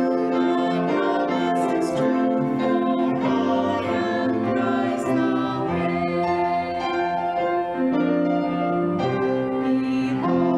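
A hymn sung with piano accompaniment: slow, sustained notes that change every second or two.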